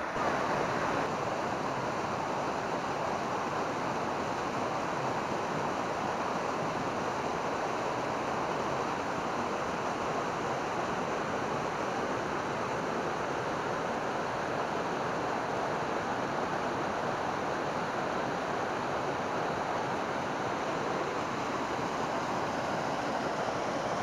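Small waterfall cascading over rocks into a shallow stream pool: a steady rushing splash of falling water that does not change.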